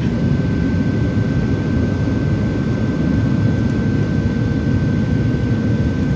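Boeing 737-700 cabin noise in flight: the steady low rumble of the jet engines and rushing air, heard from a window seat, with a thin steady whine above it.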